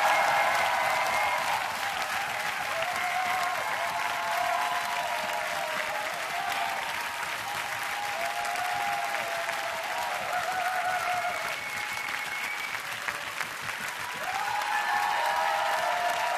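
Studio audience applauding and cheering after a dance, with voices whooping over the clapping; the applause swells again near the end.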